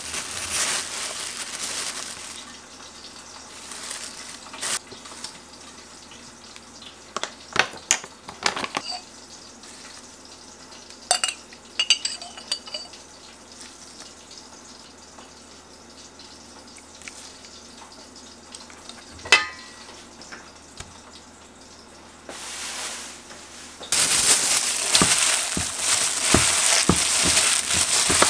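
Kitchen cooking sounds: a short hiss at the start, then scattered clinks of utensils and dishes. About four seconds before the end, a loud, dense crackle sets in, like food sizzling or being tossed and mixed.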